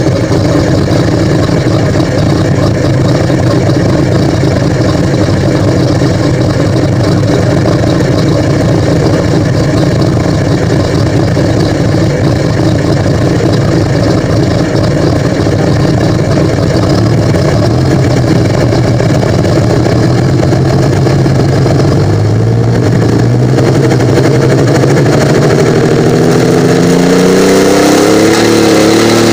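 A pulling vehicle's engine, heard close by through its twin upright exhaust stacks, runs at a steady fast idle. From about 22 seconds in, the revs climb steadily to the end.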